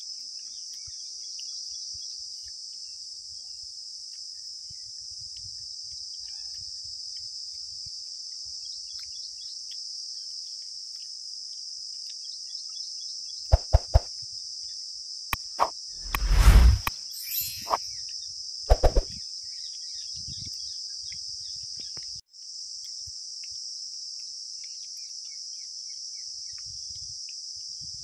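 Steady, high-pitched chorus of insects buzzing without a break. A handful of loud sharp knocks and a brief rustling burst come around the middle.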